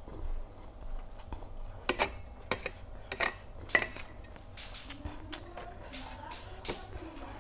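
A metal fork clinking and scraping against a stainless steel serving tray of rice vermicelli. Several sharp clinks come between about two and four seconds in, followed by softer scraping.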